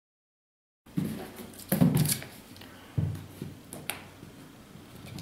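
Dead silence for the first second, then a rigid presentation box being handled on a wooden tabletop. Three soft knocks with handling noise come about a second apart, then a sharp click near four seconds in.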